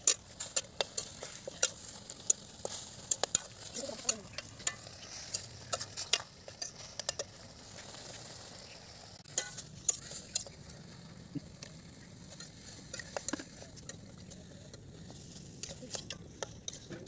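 Metal spatula stirring and scraping Malabar spinach in a metal wok, with a steady sizzle of frying and frequent sharp clicks of the spatula against the pan, thickest in the first half.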